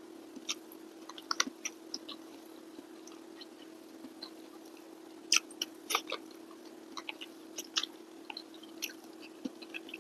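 A person chewing a mouthful of rice and fish eaten by hand: irregular short, wet clicks of the mouth, with a cluster of louder ones about halfway through.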